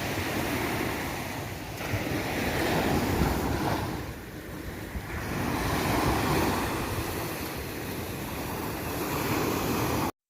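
Sea waves washing in with wind buffeting the microphone, swelling and easing every couple of seconds; the sound cuts off abruptly near the end.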